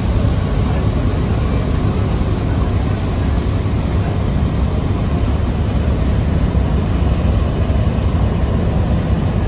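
Large river passenger launches under way at speed: a steady deep engine rumble mixed with rushing water from the bow wave.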